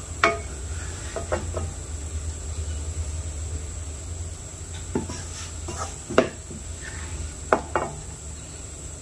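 Plastic spatula scraping and knocking against a non-stick frying pan and a ceramic plate as dry fried fish floss is scooped out of the pan, with several sharp taps spread through, the loudest about six seconds in. A steady low hum runs underneath.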